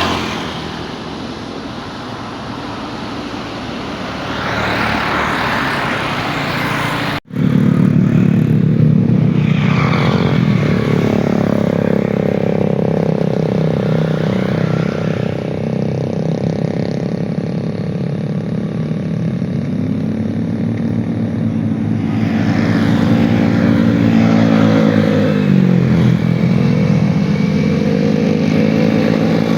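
Loud engine noise near an airport. A steady roar runs for the first few seconds, then breaks off for an instant about seven seconds in. After the break comes a droning engine hum whose pitch slowly drifts and dips, as passing vehicles or aircraft engines change speed.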